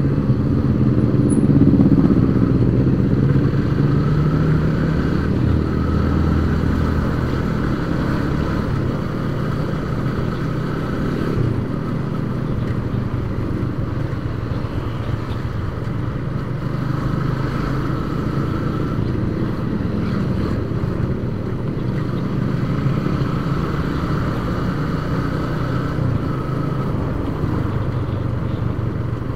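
Yamaha Vixion single-cylinder four-stroke motorcycle engine running while riding, heard from on the bike with road and wind noise. The engine note shifts with the throttle over the first several seconds and is loudest about two seconds in, then settles into a steady cruise.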